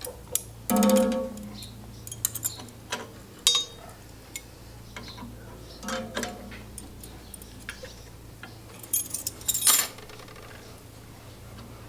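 Metal hand tools and small fuel fittings clinking and tapping while working on the carburetor's fuel inlet. There is a brief ringing clink about a second in, a sharp clink near the middle, and a quick run of clinks near the end.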